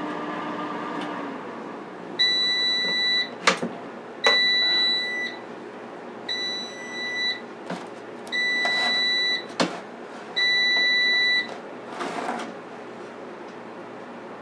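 Power Air Fryer Oven's end-of-cycle alert: five steady electronic beeps, each about a second long and roughly two seconds apart, signalling that the timer has run out. A couple of sharp knocks come between them as the oven door is opened and the muffin tin is handled.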